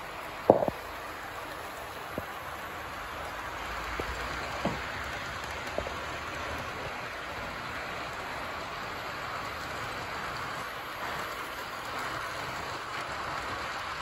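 Model train rolling along the track: a steady rushing noise that grows a little louder as the cars pass close. A few sharp clicks sound in the first six seconds, the loudest about half a second in.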